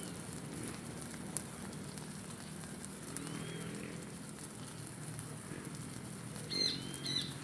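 Bonfire burning with a steady hiss and a few sharp crackles. Short high chirps near the end, likely birds.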